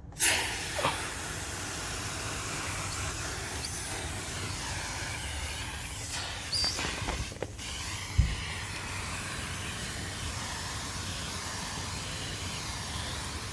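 Liquid propane spraying out of the nozzle of a propane freeze-spray gun: a steady hiss that starts abruptly, with a sharp knock about eight seconds in.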